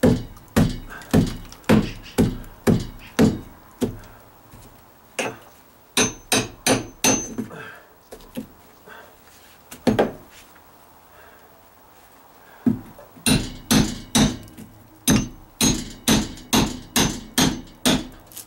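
A fiberglass-handled claw hammer striking the wood of a rotted plywood-sheathed wall as nails are worked loose to be pulled. The blows come in runs of about two a second, with a pause of a few seconds in the middle broken by one single blow.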